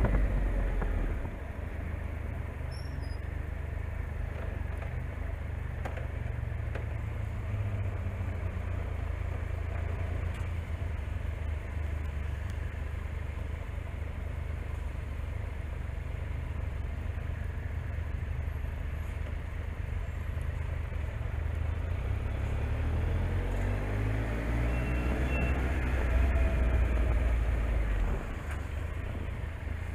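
Motorcycle engine and road noise on a city ride: a steady low rumble, with the engine note rising as it accelerates from about 23 seconds in, then easing off near the end.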